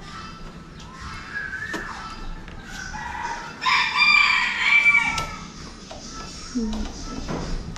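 A rooster crowing once, loudly, starting about three and a half seconds in and lasting about a second and a half.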